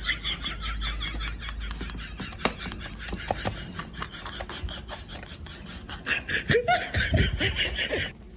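A cat eating dry kibble from a bowl, its bites making sharp crunches. A short bout of laughter comes in near the end and is the loudest sound.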